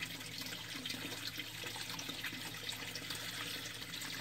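A thin stream of water from an aquaponics grow-bed inlet pipe falling steadily into the bed's standing water, trickling and splashing. The inflow has been turned up to free a stuck U siphon.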